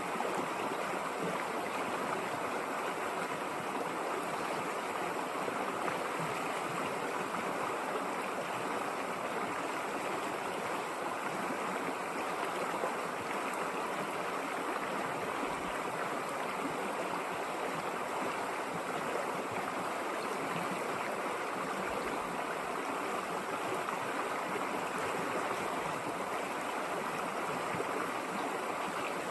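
River water flowing and rushing over stones, a steady, even rush with no changes.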